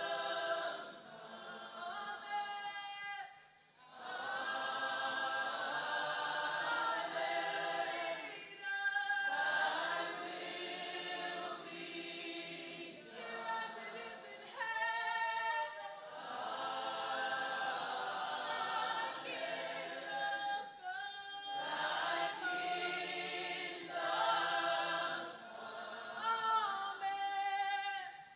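A worship choir singing a cappella, with no bass or instruments under the voices. The singing comes in long phrases separated by brief pauses.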